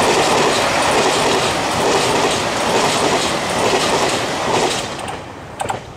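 JR Hokkaido KiHa 283 series diesel express train passing close by at speed: wheels running on the rails with a repeating clickety-clack as the bogies cross the rail joints. The sound falls away sharply near the end as the last car goes by.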